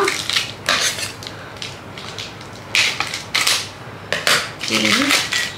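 Packaging rustling and crinkling in several short bursts, with light clatter, as a plastic juice tumbler is unwrapped and handled.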